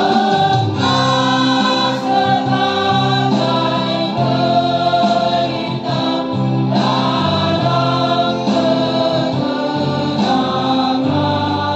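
A teachers' choir singing together in slow, held notes that change pitch about every second.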